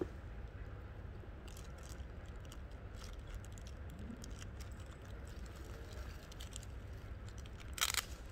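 Faint clicks and rustles of small objects being handled in the hands, with one louder short rustle near the end, over a steady low background hum.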